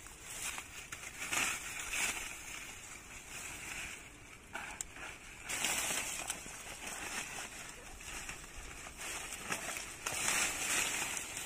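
Dry, papery banana leaves and stalks rustling and crackling as they are pushed aside and torn by hand, in irregular surges with the loudest bouts about a second in, around the middle and near the end.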